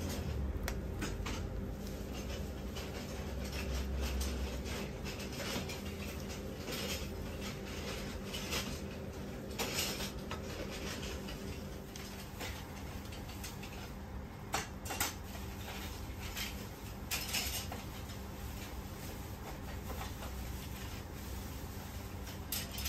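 Hand-making dumplings: a spoon scraping filling and soft handling of the wrappers, with a few sharp clicks and taps about halfway through, over a steady low hum.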